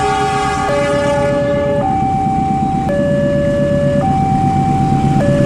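Two-tone hi-lo siren switching between a lower and a higher pitch about every second, over a steady low rumble.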